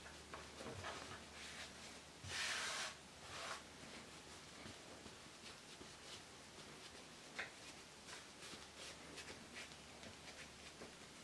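Hands lightly patting and pressing soft scone dough on a floured worktop, shaping it without kneading: faint soft pats and rustles, with a louder brief rustle about two seconds in.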